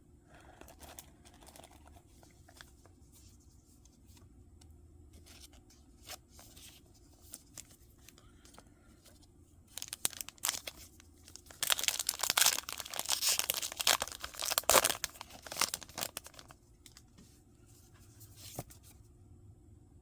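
Foil wrapper of a Pokémon booster pack being torn open and crinkled. A few light clicks of handling come first, then about halfway through a burst of tearing and crinkling that lasts several seconds.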